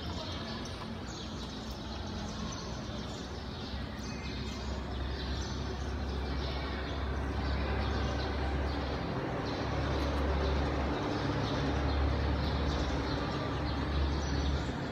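Steady low rumble and background hiss, with faint bird chirps now and then.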